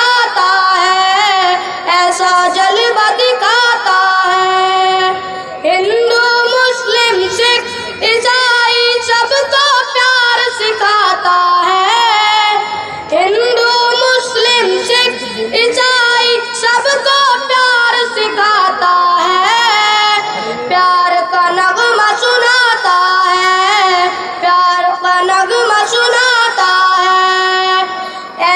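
A boy singing a patriotic Urdu naat solo into a microphone, in long phrases of held, wavering notes with short breaths between.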